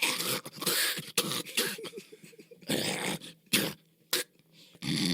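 A man imitating animal noises with his voice: a string of short, raspy grunts and huffs with pauses between them, then a longer rasping growl starting near the end.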